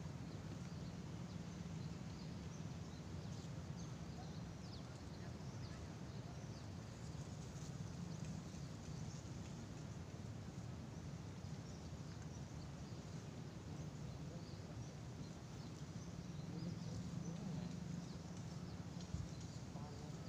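Quiet outdoor ambience: a steady low hum with faint, scattered high chirps.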